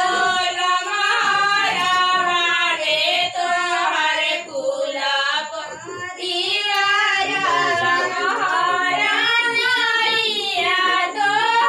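Women singing a traditional ceremonial song together, the voices held in long sung lines, with a short lull about five seconds in.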